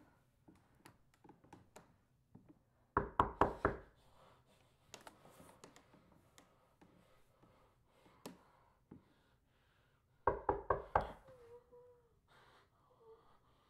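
Someone knocking hard on a wooden door: two bursts of about five quick knocks, some seven seconds apart. After the second burst come a few faint, short whimpers.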